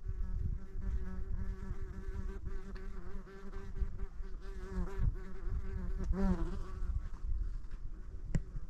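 A flying insect buzzing close by, its pitch wavering and dipping as it moves about, then fading near the end, followed by a single sharp click.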